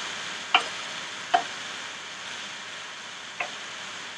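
A spoon stirring ground-beef filling in a pan, with three light clicks of the spoon against the pan over a faint steady hiss.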